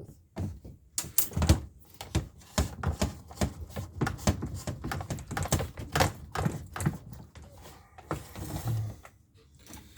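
A quick, irregular run of clicks and light knocks from hand tools working on the plastic housing of a McCulloch Mac 3200 chainsaw during disassembly, easing into softer rustling near the end.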